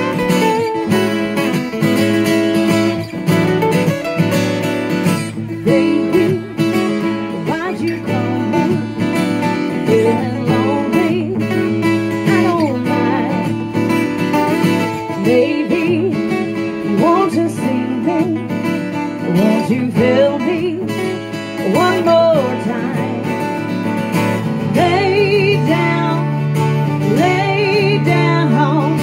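Two acoustic guitars playing a blues tune live, strummed chords under lead lines with bent notes.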